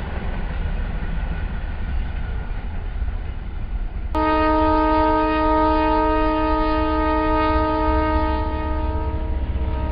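Diesel locomotive horn sounding one long, steady chord that starts suddenly about four seconds in and holds for nearly six seconds, over a continuous low train rumble.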